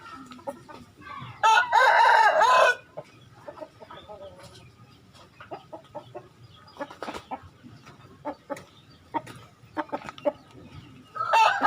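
A rooster crowing twice: a call of just over a second beginning about a second and a half in, and a second crow starting near the end. Faint clicks and knocks come between the crows.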